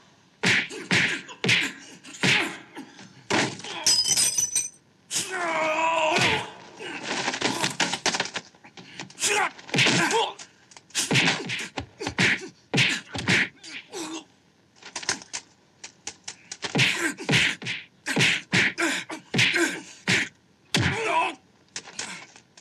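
Rapid, uneven run of martial-arts film fight sound effects: punches and blocks landing as sharp whacks and thuds. A man's drawn-out cry rises and falls about five seconds in.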